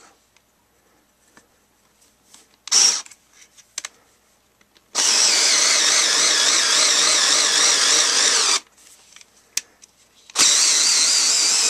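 Genesis 7.2-volt lithium-ion cordless screwdriver running under load while driving screws: a brief burst about three seconds in, then a steady run of about three and a half seconds, and another run starting near the end.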